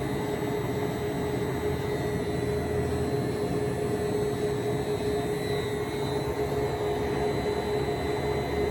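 Large Poreba TPK110/6M engine lathe running: a steady machine hum with a clear whine held at one pitch, as its cross slide moves under power feed.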